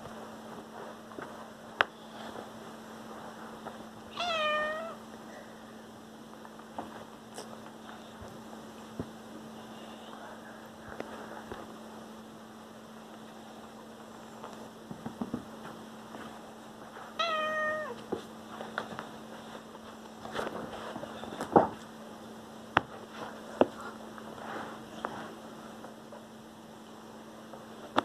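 Domestic cat meowing twice, two short calls about thirteen seconds apart, each dropping slightly in pitch. Between and after them come scattered sharp taps and knocks, the loudest about two-thirds of the way through, over a steady low hum.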